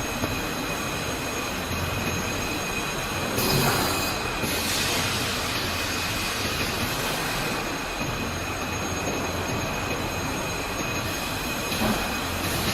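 Fibre cement board production machinery running steadily, with a constant high whine over a dense mechanical noise. About three and a half seconds in there is a brief louder burst of hiss.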